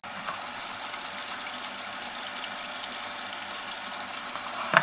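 Silvercrest Monsieur Cuisine Plus food processor running steadily at speed 3, its motor driving the whisk attachment through the liquid custard mix. A knock comes near the end.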